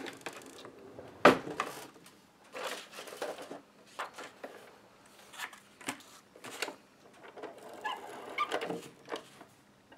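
Craft materials handled on a tabletop: a sharp knock about a second in, then scattered taps and rustles of paper and card. Near the end a Scotch ATG tape gun is run along the edge of a piece of white cardstock, laying down adhesive with a light whirring rasp.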